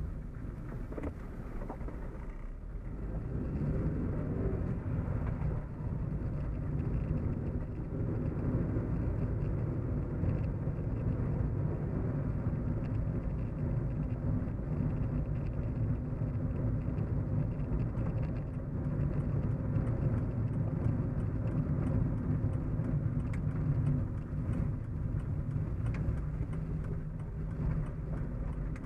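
Car cabin hum while driving: a steady low rumble of engine and tyre road noise, easing off briefly about two seconds in.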